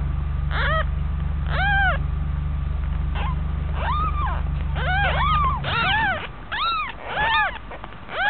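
Young kittens mewing: about nine short, high squeaky mews that rise and fall in pitch, spaced out at first and coming faster in the second half. A steady low hum underneath stops about two-thirds of the way through.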